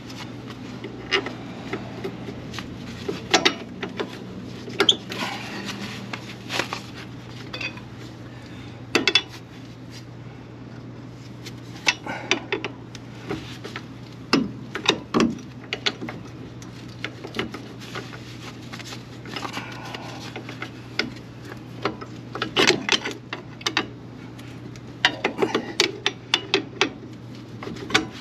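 Scattered, irregular metal clinks and clanks of hand tools and suspension hardware being handled while a truck's front strut assembly is fitted, over a steady low hum.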